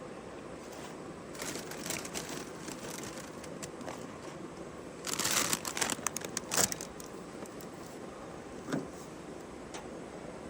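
Campfire cooking sounds: a steady hiss with scattered crackles, a louder burst of crinkling and rustling about five to seven seconds in, and a single dull knock near the end.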